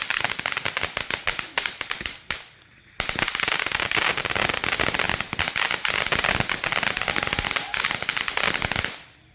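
Firecrackers going off in a rapid, continuous string of sharp pops: one run stops about two seconds in, and after a short pause a second, denser run goes on until near the end.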